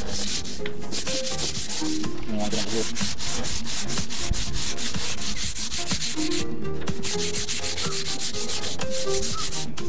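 80-grit sandpaper on a hand sanding block rubbed back and forth along a teak toe rail, in quick, steady strokes with a brief pause about six and a half seconds in.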